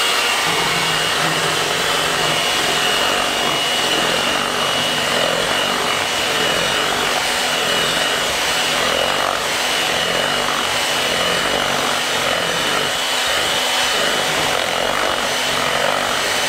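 Electric hand mixer running at a steady speed with a high, even motor whine, its beaters whisking melted chocolate into whipped cream.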